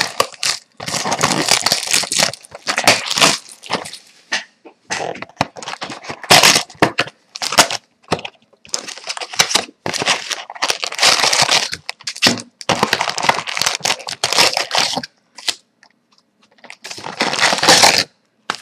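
Plastic shrink wrap torn off a cardboard box of trading-card packs, then the foil card packs rustled and pulled out of the box and stacked, in irregular bursts of crinkling and crackling with short pauses.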